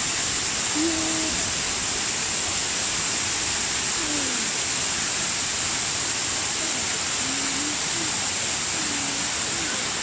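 A wide waterfall pouring over a rock ledge and crashing onto boulders below, a steady, unbroken rush of water.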